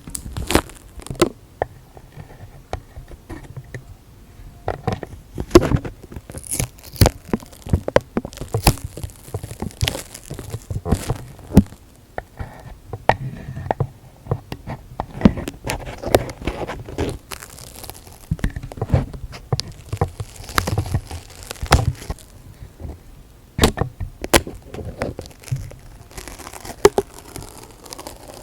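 Close-miked ASMR trigger sounds: materials handled and rubbed right at the microphone, giving irregular sharp taps and crackles.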